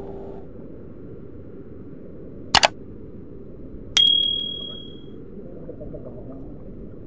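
Subscribe-button sound effect: a quick double click about two and a half seconds in, then a bright bell ding about four seconds in that rings out for about a second. Underneath runs steady low background noise.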